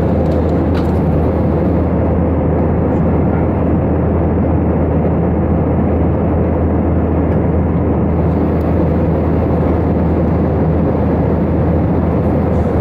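Steady in-flight cabin noise of an Airbus A320, heard from a window seat beside the wing: an even rush of jet engine and airflow noise, strongest in the low range, with a steady low hum and no change in pitch or level.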